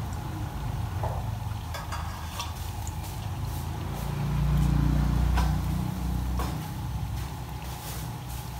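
Chicken deep-frying in a wok of bubbling oil, with a metal slotted skimmer clinking against the pan several times as the pieces are stirred. A low rumble runs underneath and swells about four to five seconds in.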